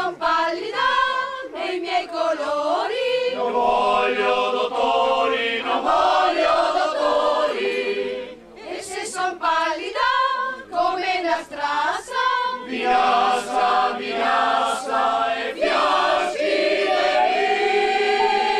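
Mixed choir of women's and men's voices singing an Italian First World War soldiers' song unaccompanied. The singing breaks off briefly about halfway through and ends on a long held chord.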